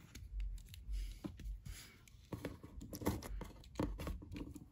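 Quiet, irregular clicks and rubbing from a plastic Hasbro Lightning Collection Time Force Red Ranger action figure being handled, its limbs moved and turned in the hands.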